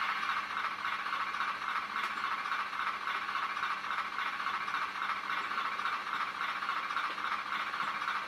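LokSound micro sound decoder in a Bachmann 45-tonner model locomotive playing its diesel engine idle through a small 13 mm speaker: a steady, even rhythmic chugging with hiss, thin and tinny.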